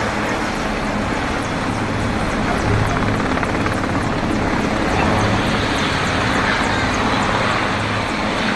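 Indian Navy helicopter flying low over the water, its rotor and turbine making a steady, loud drone.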